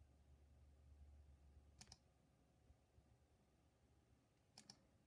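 Near silence: faint room hum with a few soft clicks, one about two seconds in and a quick pair near the end, as from computer input while operating the iMac.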